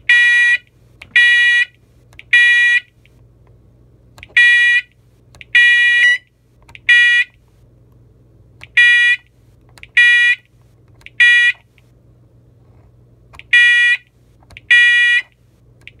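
Fire alarm horn sounding in the temporal-three evacuation code, keyed on and off by hand: four groups of three half-second beeps, each group followed by a pause of about a second and a half.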